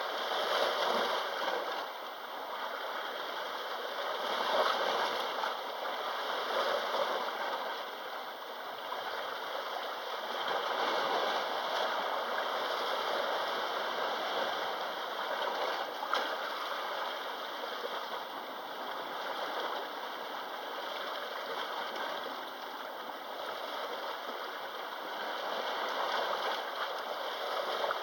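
Sea waves rushing steadily, swelling and easing every few seconds.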